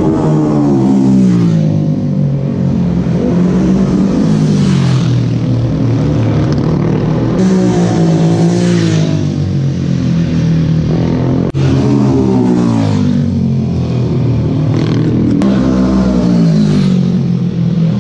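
Racing motorcycles accelerating hard past one after another, each engine climbing in pitch and dropping back at every upshift.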